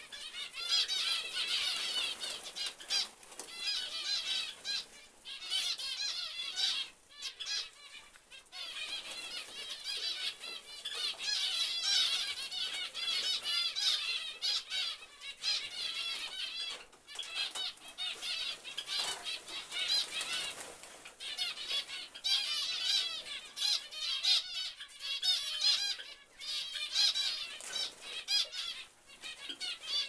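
A flock of small aviary finches chirping and twittering nonstop in many overlapping short high calls, with wings flapping as birds fly about the aviary.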